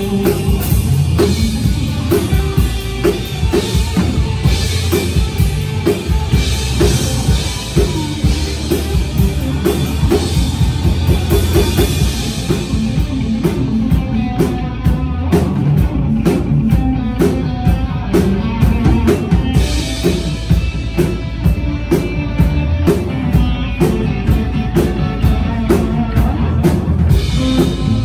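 Live band playing an amplified rock-country song with a drum kit keeping a steady beat under guitar. The bright cymbal wash drops away for a stretch about halfway through, leaving mostly the drum hits, then returns.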